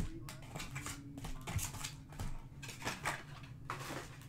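Foil trading-card packs and cards being handled: an irregular string of short crinkles and light taps, two or three a second.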